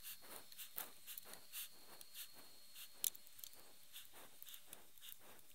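Faint rustling and small clicks of wires and plastic harness connectors being handled and pushed together by hand, with one sharper click about three seconds in.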